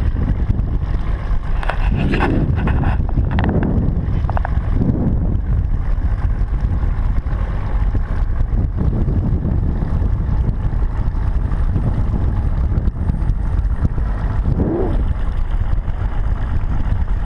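Wind buffeting the microphone on an open boat at sea, a loud steady low rumble, with faint voices now and then.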